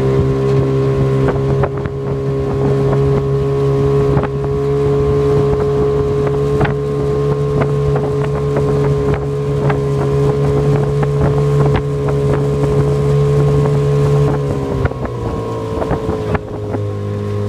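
Outboard motor of an aluminium coach launch running steadily at cruising speed, with wind on the microphone and scattered knocks. About fifteen seconds in, the engine note drops.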